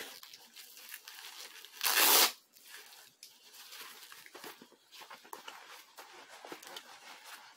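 A boxing glove's hook-and-loop wrist strap ripped open once, about two seconds in, followed by softer rustling and handling of the gloves as one is pulled on.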